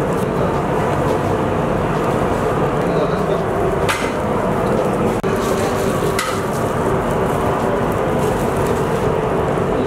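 Steady roar of a commercial kitchen: gas burners on the range and an extraction fan running. A couple of sharp clinks of a steel ladle against the clay pots, about four and six seconds in.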